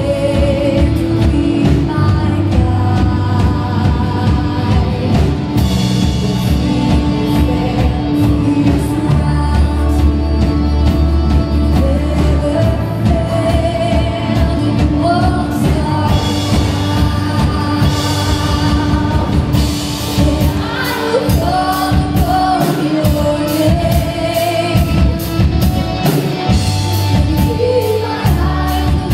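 A live worship band playing a slow worship song: vocals sung over keyboard, acoustic and electric guitars, bass guitar and drum kit.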